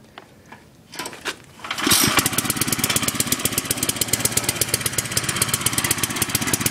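Small engine of a wood splitter starting up about two seconds in, then running steadily with a fast, even beat.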